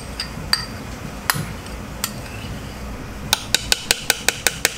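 Metal spoon clinking against bowls while yogurt is scraped out: a few scattered clinks, then from about three seconds in a quick run of sharp taps, about five a second, as the spoon is knocked against a bowl to shake off the yogurt.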